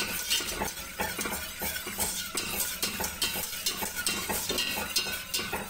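Wire whisk stirring coconut milk and condensed milk in a metal cooking pot, its wires scraping and clicking against the pot in quick repeated strokes.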